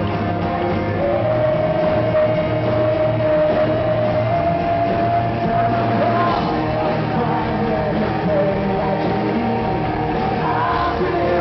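Live rock band playing, a male lead singer singing over electric guitar and band, heard from the audience in a large hall.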